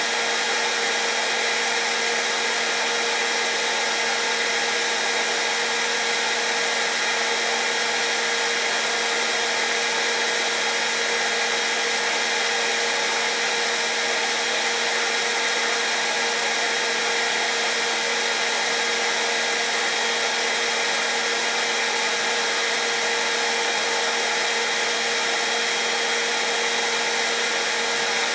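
Hairdryer running steadily, a constant blowing rush with a steady motor hum and whine.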